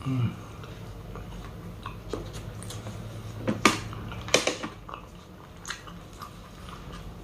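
Close-miked chewing of chicken sisig, with scattered small mouth clicks and two louder clusters of sharp clicks about three and a half and four and a half seconds in.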